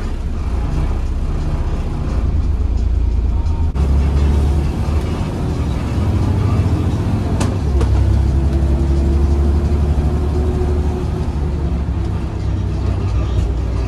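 Volvo B7RLE bus's six-cylinder diesel engine running as the bus drives, pulling harder from about four seconds in. There is a single sharp click about halfway through, and a faint, slightly rising whine for a few seconds after it.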